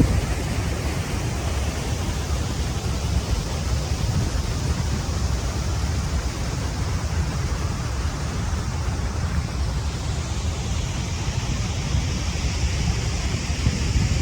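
Steady rushing roar of a waterfall, with no breaks or changes.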